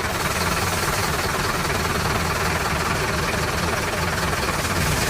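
A steady idling engine sound: a fast low chugging under an even hiss, without a break.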